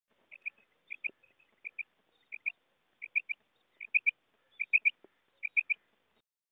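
Female common quail calling: a series of quick, high clusters of short notes, about eight clusters roughly 0.7 s apart. They start as pairs and turn to groups of three in the second half.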